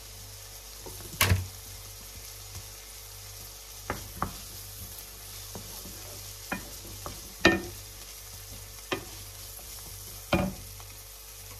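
Chopped vegetables sizzling in hot oil in a frying pan while a wooden spoon stirs them, with about six sharp knocks of spoon on pan, the loudest about a second in and about halfway through.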